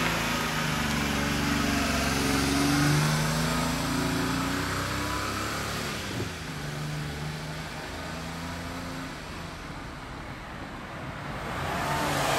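Small engine of an old kei truck pulling away, revving up through the gears and fading into the distance, with a weaker rev-up about halfway through. The engine is blowing white smoke from its exhaust.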